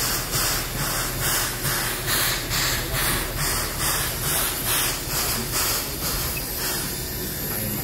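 CK124 steam locomotive venting steam in hissing puffs, about two a second, which give way to a steadier hiss near the end.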